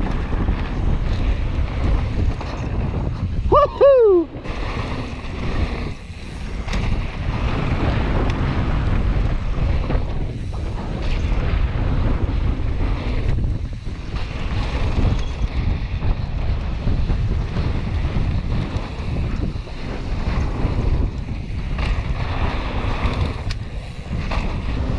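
Wind buffeting a helmet-mounted action camera's microphone, over the rumble of mountain bike tyres on a dry dirt trail during a fast descent. About four seconds in there is one short, loud sound that falls in pitch.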